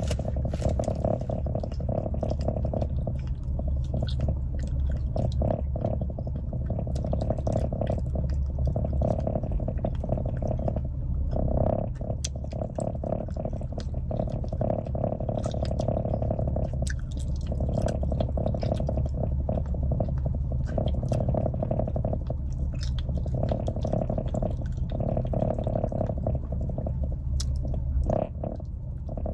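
Open-mouthed chewing of a chewy candy by someone wearing snap-in dentures, top and bottom: many wet smacks and clicks over a steady low hum.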